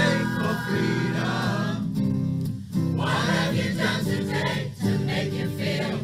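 A choir singing a song with acoustic guitar accompaniment, with a brief gap between phrases about two and a half seconds in.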